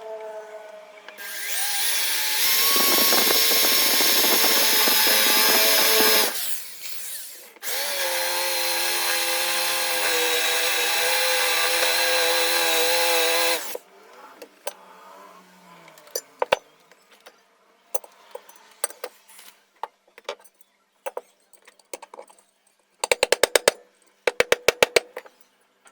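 Electric drill boring holes through the ceiling fan motor's end plate, in two runs of about five and six seconds with a steady motor whine, to free the seized ball bearing. After the drilling come scattered small taps and, near the end, a quick run of about a dozen sharp knocks.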